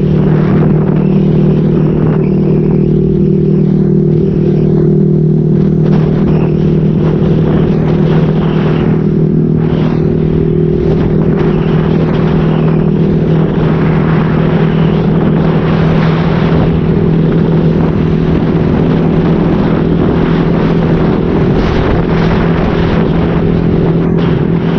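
Motorcycle with an SC-Project exhaust with a modified elbow, running at a steady engine speed while riding, its note holding one pitch. A rushing noise over it swells and fades.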